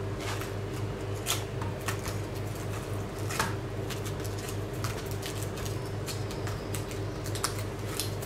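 Butcher's knife cutting along the loin of a hanging pork half, with a few soft clicks and scrapes of the blade, over a steady low hum.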